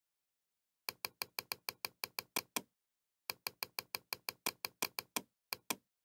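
Quick runs of sharp clicks from a computer input device: about eleven, a short pause, about a dozen more, then two, roughly six a second.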